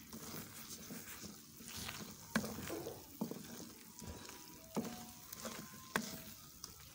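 Wooden spoon stirring and scraping thick besan halwa in a non-stick kadai, over a soft sizzle of the ghee the halwa has begun to release, a sign it is nearly cooked. A few sharp knocks of the spoon against the pan.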